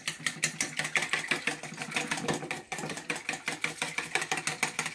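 Egg batter being whisked in a stainless steel mixing bowl: a rapid, even clatter of the utensil striking the metal bowl, many strokes a second.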